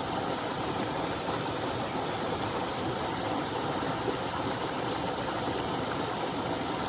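Small but powerful waterfall: water falling and splashing in a steady, even rush.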